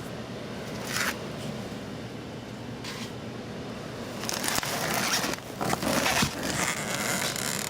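Packing material being rustled and crumpled while parts are unpacked from a box, with a couple of brief swishes early and busier, louder rustling and scraping in the second half.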